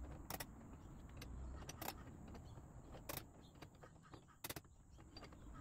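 Faint metallic clicks and clinks from the steel pulling chain and hooks of a door force-test rig, a few single clicks spread over several seconds, with a low rumble in the first second and a half.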